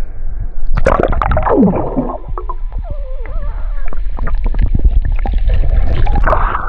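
Water splashing and gurgling close to the microphone, with many sharp clicks over a steady low rumble. About a second in, a sound slides down in pitch.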